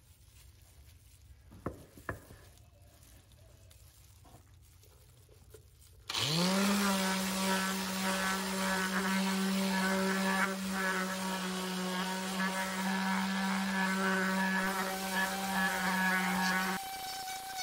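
Small electric detail sander switched on about six seconds in, spinning up to a steady hum while it sands a wooden ice cream freezer bucket stave. Before it starts there are only a couple of faint handling clicks, and the sound drops in level near the end.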